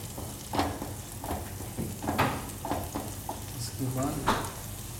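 Wooden spatula stirring and scraping a red chilli and ginger-garlic masala paste that sizzles as it fries in oil in a non-stick frying pan, with about six sharp scraping strokes.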